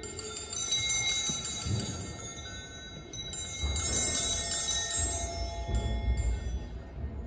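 Hand-rung altar bells (a cluster of small sanctus bells) jingling and ringing, shaken several times, as they are rung at the elevation of the chalice during the consecration.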